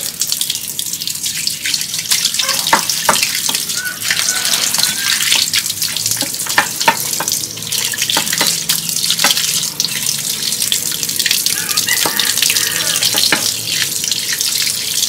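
Tap water running steadily into a basin while cut catfish pieces are rinsed by hand under it, with frequent short splashes and knocks as the fish are handled.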